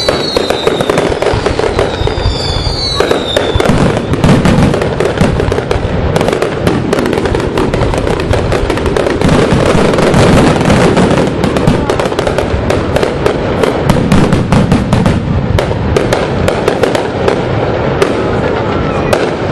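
Fireworks display in its finale: a dense, rapid barrage of bangs and crackling, with whistling shells falling in pitch twice in the first few seconds.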